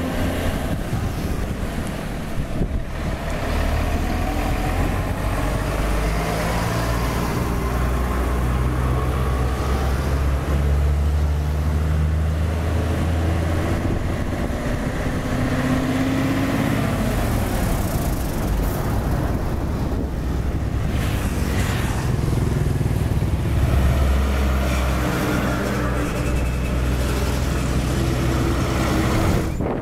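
Heavy diesel self-loader trucks driving slowly past one after another, their engines running with a low rumble whose pitch shifts up and down several times.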